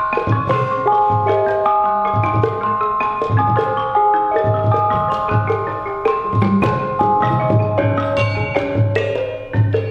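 Gamelan ensemble playing: kettle gongs and metallophones struck with mallets in dense overlapping patterns of ringing pitched notes. Under them a low note pulses about once a second, coming faster in the second half.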